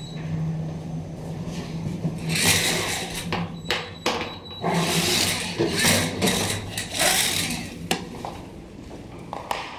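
Plastic caution tape being handled by hand: irregular rustling and scraping swishes over a steady low hum that fades near the end.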